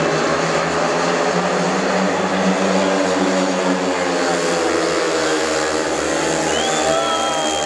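Speedway motorcycles racing as a pack, their 500 cc single-cylinder methanol engines running at high revs, with the pitch rising and falling a little through the bends. A thin high tone joins in near the end.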